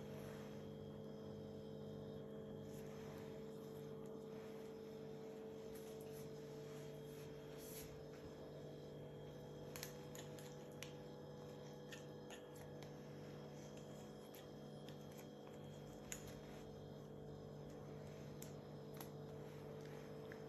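Steady low electrical hum, with a few faint scattered clicks and rustles from latex-gloved hands handling a stethoscope.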